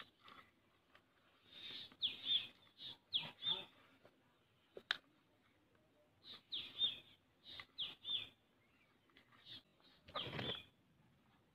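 Small birds chirping in short, high calls that come in two bouts, with a single sharp click about five seconds in and a brief rustle of handling near the end.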